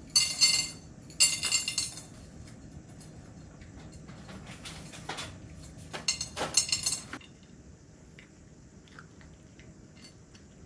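Dishware clinking and scraping in three short ringing bursts: one at the start, one about a second and a half in, and one around six to seven seconds in, with faint ticks between.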